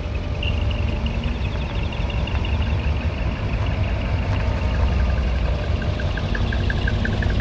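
Heavy truck's diesel engine running low and steady as the truck rolls slowly past at close range.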